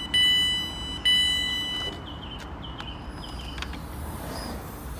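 Train door warning beeper sounding in long, steady high beeps of about a second each, stopping about two seconds in: the signal that the passenger doors are opening after the door-open button is pressed.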